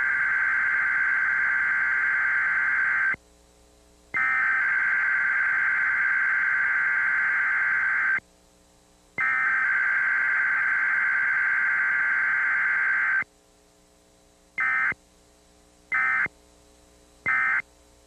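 Emergency Alert System SAME digital header: three bursts of data tones, each about four seconds long with a second's gap between them, followed by three short end-of-message bursts near the end. These are the coded signals of a Required Weekly Test.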